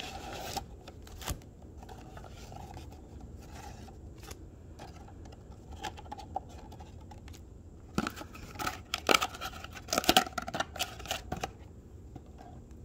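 A cardboard trading-card box being opened by hand: faint rustles and small scrapes, then a burst of louder tearing and scraping of the cardboard about eight to eleven seconds in.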